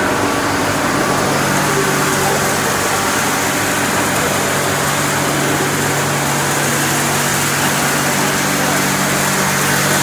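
Plastic film washing line with squeezer running: a loud, steady machine noise with a low hum from the motors and rotating washers, with no change in rhythm or level.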